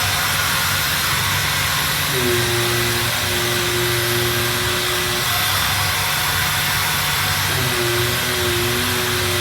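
Robotic sanding cell running steadily on MDF doors, a continuous hiss and hum of sanding and dust extraction. A motor tone in it cuts out twice for a couple of seconds and comes back.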